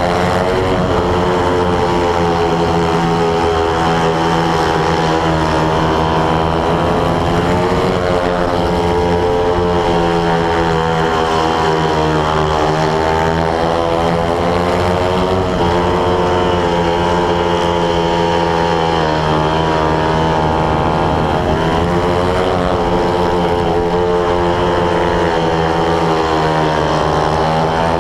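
500 cc single-cylinder speedway motorcycle engine running at race speed, heard from a camera mounted on the bike. Its pitch climbs and falls every three to four seconds as the rider works the throttle through the straights and turns.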